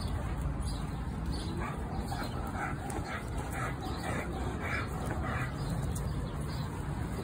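A dog giving a run of short, high-pitched yips during rough play, about two a second for a few seconds in the middle, over a steady low rumble.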